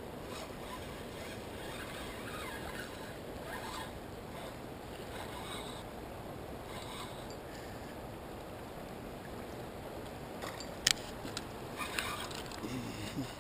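Steady rush of fast river water in the dam's tailwater. A few sharp clicks near the end come from handling the fishing rod and reel.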